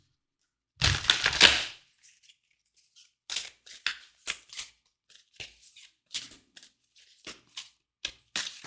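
Tarot cards being handled: a run of short, sharp, irregular clicks and snaps, several a second, from about three seconds in. A single louder sound comes about a second in.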